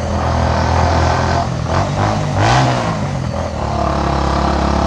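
Bajaj Avenger motorcycle's single-cylinder engine and exhaust running steadily under load while riding uphill, with its note wavering about halfway through.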